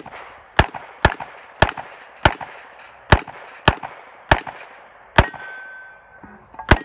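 A 9mm Glock 19 Gen 4 pistol fired in a steady string of about ten shots, a half-second to a second apart, with steel plate targets ringing as they are hit.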